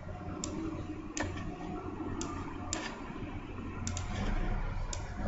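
Computer mouse clicking: about six short, sharp clicks at irregular intervals, over a faint low hum.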